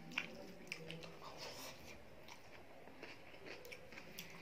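Close-miked eating of rice with dal and curry by hand: scattered wet clicks and smacks of chewing, with soft squishing of fingers mixing the rice on the plate.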